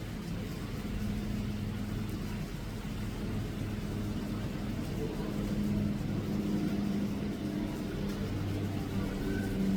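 A steady low machine hum with faint murmuring voices in the background.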